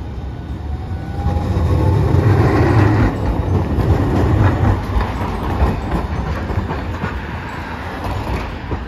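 Hiroden Green Mover LEX low-floor articulated tram passing close by. Its running noise builds to a peak about two to five seconds in, then eases as it moves away, with a faint rising whine near the start and a few clicks.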